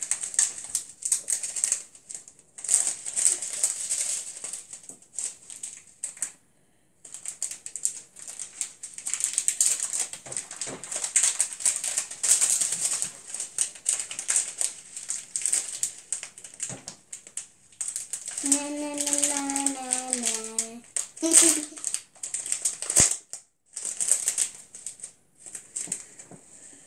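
Plastic bag of small foam beads crinkling as it is squeezed and shaken, the beads rattling against the plastic in rapid crackly runs with short pauses.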